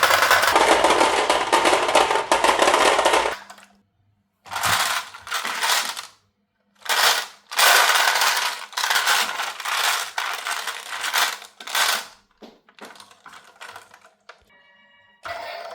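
Marbles rolling and clattering down a wooden marble run. For about the first three seconds there is dense, continuous rolling. After that come separate spells of rolling with short silences between them, thinning out to scattered small clicks near the end.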